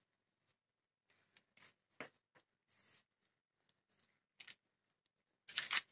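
Metal spoon spreading jam over raw pastry in a tart tin: a few faint, soft scrapes and taps, then a louder clatter near the end.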